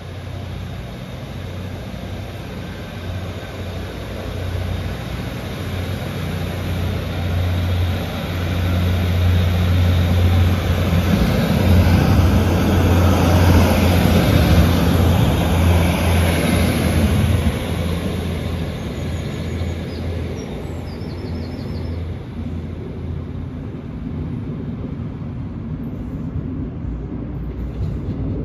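Northern diesel multiple unit pulling out of the station, its diesel engine running with a steady low hum. It grows louder as the train passes close by about halfway through, then fades as it pulls away down the line.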